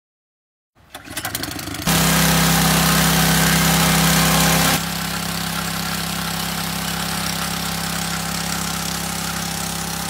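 Small portable gasoline water pump engine running steadily under load as it pumps water out of a tidal rock pool. It comes in about a second in, is loudest for the next few seconds, then runs on slightly quieter.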